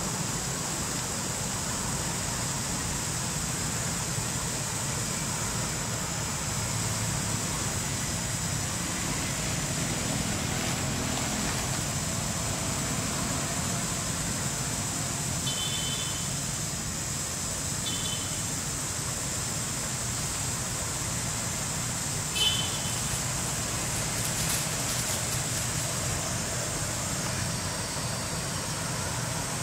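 Steady outdoor background noise, a low rumble under a high steady hiss. A few short high chirps come in the middle, and the last of them lands with a sharp tap, the loudest sound.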